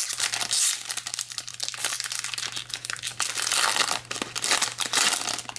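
Foil wrapper of a 2021 Topps baseball card pack crinkling and tearing as it is ripped open by hand, a dense, irregular crackle.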